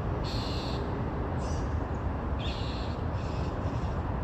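A bird giving a short harsh call four times, about once a second, over a steady low rumble.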